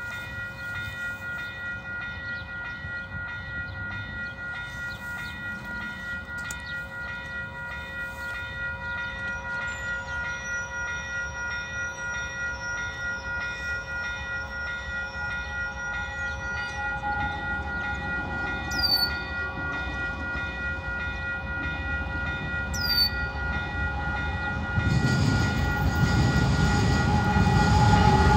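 Level-crossing warning bell ringing steadily and evenly. From about two-thirds of the way in, an approaching freight train builds up: the horn of its lead GE ES44AC locomotive sounds, and the engine's rumble grows louder, stepping up near the end.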